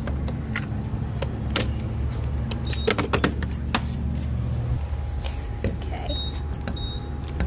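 A gas pump's fuel nozzle is lifted from the pump and handled into a car's fuel filler neck, making a series of sharp metal-and-plastic clicks and knocks over a steady low hum.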